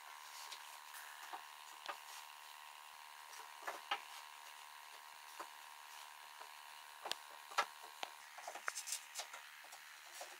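Pine boards being set down and shifted into place on a wooden table frame: scattered light wooden knocks and taps, with a quick run of them near the end, over a faint steady hum.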